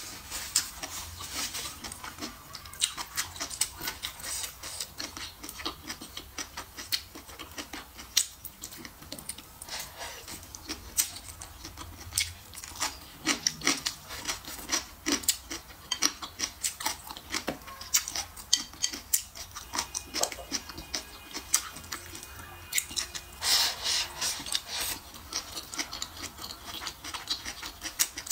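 Close-miked eating sounds: irregular wet chewing, crunching and lip smacks as a mouthful of bean sprouts, greens and braised pork belly is chewed, with one longer hissy mouth sound about two-thirds of the way in.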